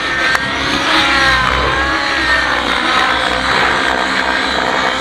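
Radio-controlled 3D aerobatic model helicopter flying overhead, its rotor and motor whine rising and falling in pitch as it manoeuvres, over a steady low rumble.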